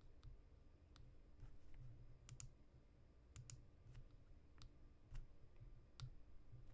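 Faint, irregularly spaced clicks from computer use at a desk, about a dozen in all, over a low room rumble.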